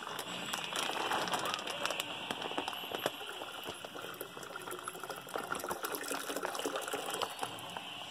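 Warm water poured from a plastic grape-juice bag into a plastic fermenting bucket of grape juice, splashing steadily, with small crackles from the plastic bag.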